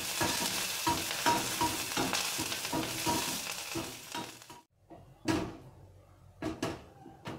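Curry leaves sizzling in hot ghee in a kadhai while a spatula stirs and scrapes them around the pan. The sizzle fades out about four and a half seconds in, followed by a few separate knocks as the leaves are lifted out.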